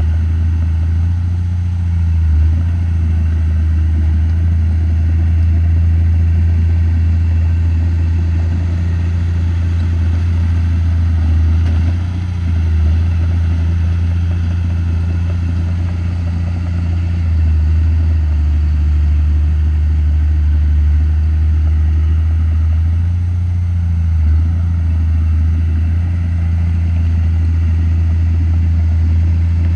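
Komatsu D31P bulldozer's diesel engine running steadily with a deep drone, its note shifting slightly now and then as it works.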